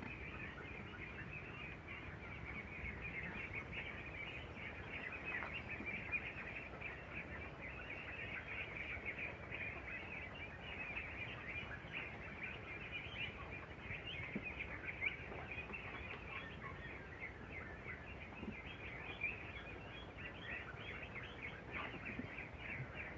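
A flock of three-week-old meat ducklings peeping continuously, many short high calls overlapping without a break.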